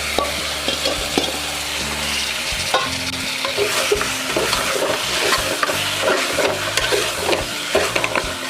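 Marinated mutton pieces sizzling and frying in hot oil in a pressure cooker, stirred with a spoon that clicks and scrapes against the pot again and again.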